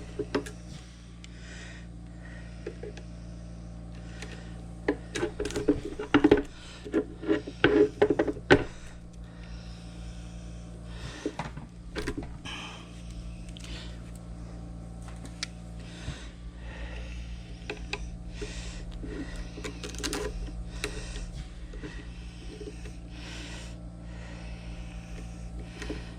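Hand-tool work on the metal guide pins of a key-cutting machine: scattered clicks and sharp knocks, with a run of louder strikes about six to eight seconds in, over a steady low hum.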